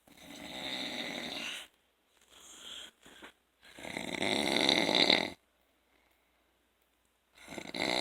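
A person snoring in their sleep. There are three long snores about three and a half to four seconds apart, with a fainter, shorter breath after the first.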